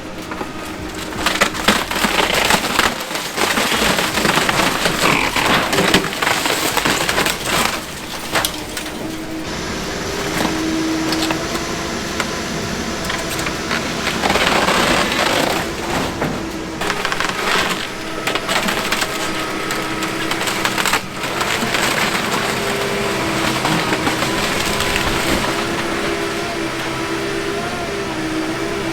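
Wood splintering, cracking and crunching as a Komatsu 170 excavator tears down and crushes a burnt-out wooden house, in several bursts. Underneath, the excavator's engine runs steadily, its pitch shifting as it works.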